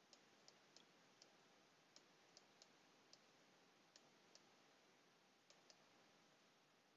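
Near silence broken by about a dozen faint, irregular computer mouse clicks from the mouse being used to hand-write on screen.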